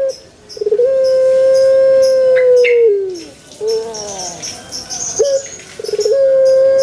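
Puter pelung dove cooing. Each coo opens with a short stuttered note and then holds one long, steady note for about two seconds before dropping away. It comes once early on and starts again about six seconds in.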